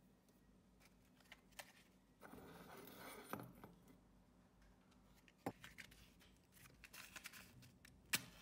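Faint handling of a miniature iron wok on a tiny brick stove: a scrape about two seconds in as the wok is lifted off, and a few light clicks. Near the end a match is struck sharply on a matchbox.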